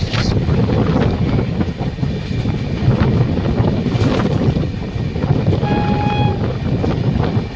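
A passing train running with a steady heavy rumble of wheels on the track. A short horn toot sounds about six seconds in.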